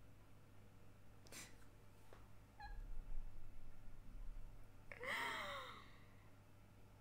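A woman stifling laughter behind her hand: a sharp breath about a second in, a low muffled rumble around three to four seconds in, then a short breathy vocal squeak that falls in pitch about five seconds in.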